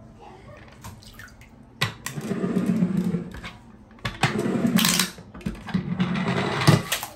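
Small toy ambulance rolled by hand across a hard plastic surface, its wheels and little gear motor whirring in three strokes, each starting suddenly and lasting about a second.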